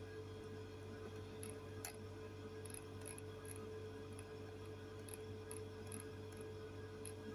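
Quiet room tone: a steady low hum with faint, irregular high ticks scattered through it.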